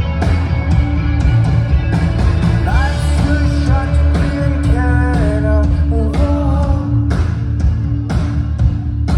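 Live rock band playing, with a lead vocal sung over heavy bass, drums and guitar; the drums hit hard near the end.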